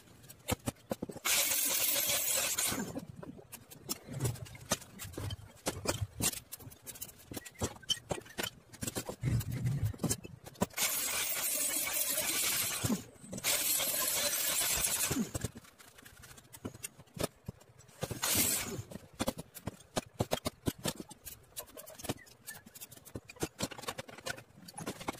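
Metalwork at a steel bench: tools and stainless parts clicking and clinking, broken by four loud bursts of rushing hiss, each lasting one to two seconds.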